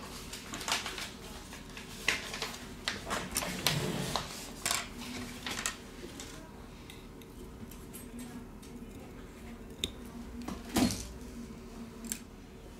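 Small sharp clicks and taps of a prying tool against a smartphone's circuit board and frame as the front camera is unplugged and lifted out. They come thick and fast for the first half, then only now and then, with one louder click late on.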